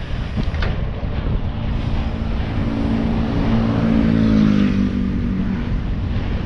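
A motorbike engine approaching and passing close by in the oncoming lane, growing louder to a peak about four seconds in, then dropping in pitch and fading as it goes by. Steady wind rushes on the microphone underneath.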